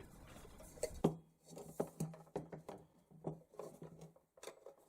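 Metal chandelier parts being handled and taken apart on a work surface: a series of light, irregular knocks and clicks.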